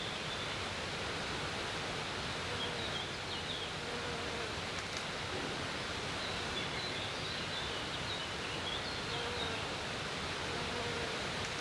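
Steady, even rushing outdoor ambience with faint, high bird chirps now and then.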